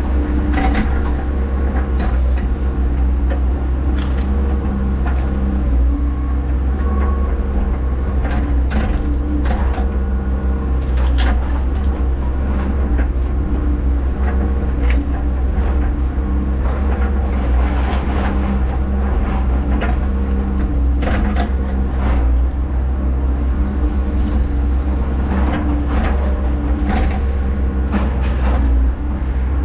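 Hyundai HX140AL excavator's diesel engine running steadily at working speed, with frequent sharp knocks and cracks from the machine at work.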